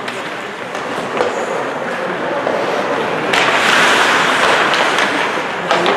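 Ice hockey play on an indoor rink: skates scraping the ice with sharp clacks of sticks and puck, and a louder rushing hiss from about halfway through.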